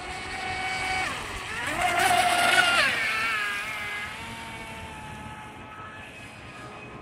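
Water-cooled 2815 1900KV brushless outrunner of a Joysway Bullet RC speedboat on 4S LiPo, whining at speed. The pitch dips briefly about a second in, climbs again and is loudest as the boat passes closest at about two and a half seconds, then falls and fades as it runs away.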